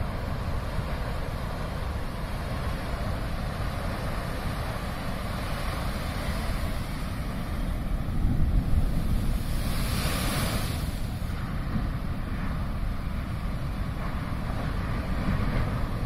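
Heavy surf breaking on a rocky shore, with wind buffeting the microphone. About halfway through, a louder rush of breaking water swells up and fades.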